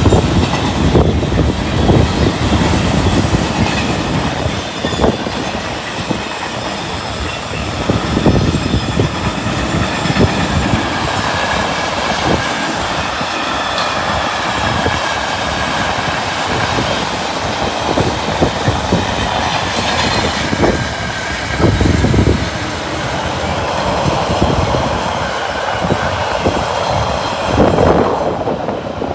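Freight train of car-transporter wagons rolling past: a steady rumble with irregular clatter and knocks of the wheels over rail joints, and a thin high whine from the wheels.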